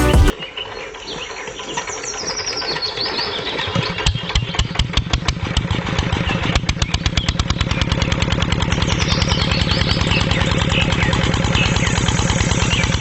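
Small engine starting up and then running at a fast, even chug that grows louder and steadies after a few seconds, with birds chirping.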